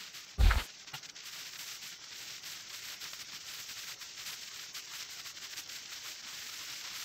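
Riding noise on a home-built electric motorcycle: a steady hiss of tyres on the road and air rushing past, with no engine sound. A single thump comes about half a second in.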